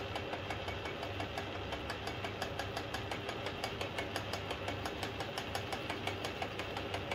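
Atlas metal lathe running under its electric motor and belt drive: a steady hum with a regular rapid ticking, while a boring tool takes a light cleaning cut inside a bushing.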